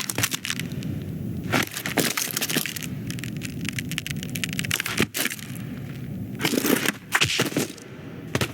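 Animated-film sound effects: clusters of sharp cracking and crunching sounds, about four bursts, over a steady low drone.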